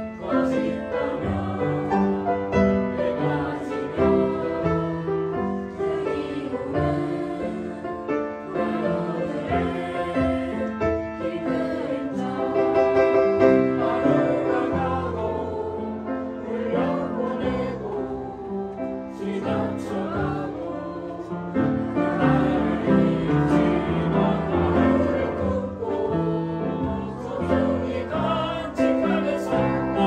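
A group of young people singing a song together to upright piano accompaniment.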